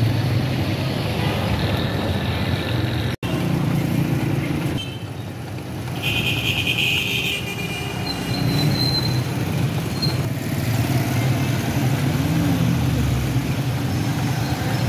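Busy street traffic: motorcycle and auto-rickshaw engines running, with a vehicle horn sounding for about a second around six seconds in. The sound cuts out for an instant about three seconds in.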